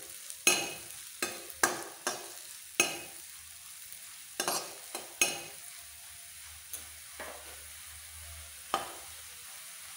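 Metal ladle scraping and tapping around a steel kadhai while small pieces of wheat-flour dough are stirred and fried in ghee until golden brown, with a faint steady sizzle underneath. About a dozen irregular scrapes, fewer in a stretch past the middle.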